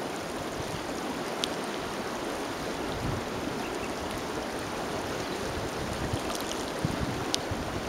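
River water flowing past, a steady, even rush of current with no let-up.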